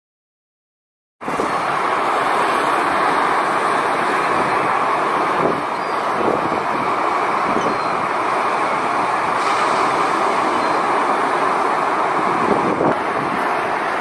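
Steady rushing of strong wind and waves breaking on the shore, starting suddenly about a second in.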